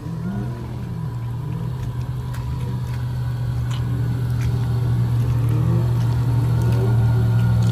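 Jeep Wrangler engine running at low revs as it crawls through mud toward the listener, growing steadily louder, its pitch rising and falling a little with the throttle.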